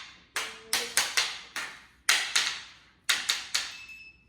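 Knee hockey play: a quick series of about eleven sharp clacks as the mini hockey sticks hit the ball and each other, coming in clusters of two or three.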